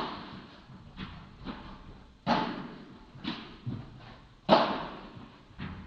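Padel rally: the ball knocked back and forth by solid padel rackets and bouncing, seven or so sharp knocks about half a second to a second apart, the loudest two about a third of the way in and near the end. Each knock echoes in the large indoor hall.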